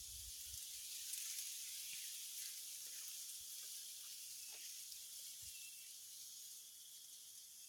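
Steady high-pitched insect chorus (crickets or cicadas), fairly faint, with a few soft clicks a few seconds in.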